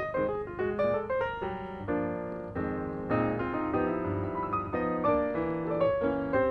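Piano background music: a run of separate notes, then held chords from about two seconds in, then single notes again near the end.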